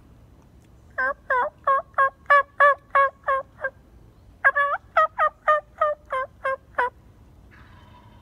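Turkey hen yelps imitated by a man's voice with no call, to draw in a gobbling tom. There are two loud series of about nine yelps each, about three a second, with a short pause between.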